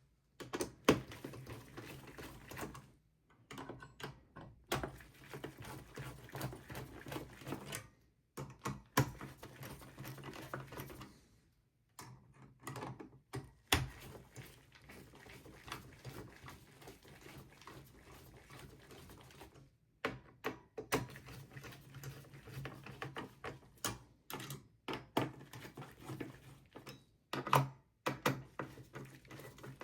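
Quick small clicks, taps and rattles of hands working on hardware inside a desktop PC case. The sound drops out briefly several times.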